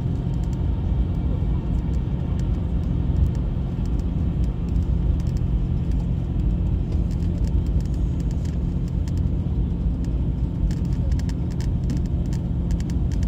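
Steady low drone and road rumble of a GO Transit highway coach heard from inside the cabin while it drives, with light clicks and rattles scattered through, more of them near the end.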